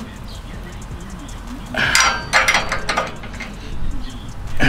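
Metal hand tools and mounting hardware clinking and rattling in short clattering bursts about two seconds in, after a quieter start, while a light-bar bracket is worked on.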